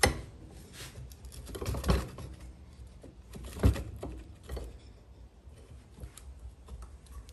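Knife blade and steel bench vise being handled: light metal clicks and knocks as the blade is set in the vise's slot and its thumb-knob clamps are worked, with three sharper knocks about two seconds apart and lighter ticks after.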